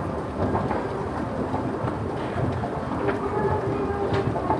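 A roughly 50-year-old escalator running, its electric drive giving a steady low rumble under the general noise of a department-store floor. A few light ticks come through near the end.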